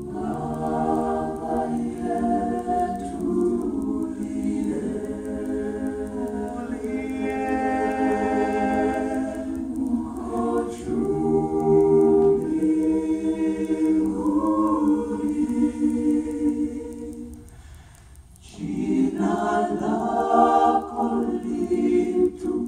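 Background music: several voices singing a cappella in held chords. The singing fades out briefly near the end, then comes back in.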